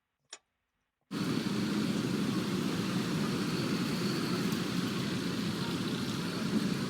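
A single click, then about a second in, street ambience cuts in abruptly: a steady rumble of traffic.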